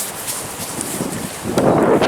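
Rushing air noise on the microphone, swelling into a louder gust about one and a half seconds in.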